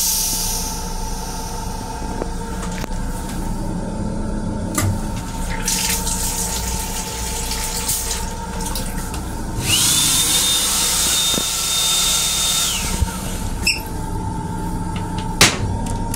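Sink faucet running in an M7 commuter railcar restroom, over the steady running hum of the train car. For about three seconds past the middle a louder rushing hiss with a steady high whine comes in, then stops; a few short clicks follow.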